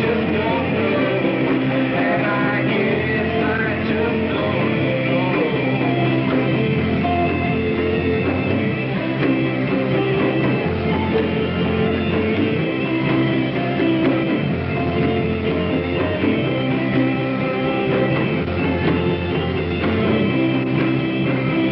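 Rock music with electric guitar over dense, sustained droning tones, the bass moving between low notes every second or two.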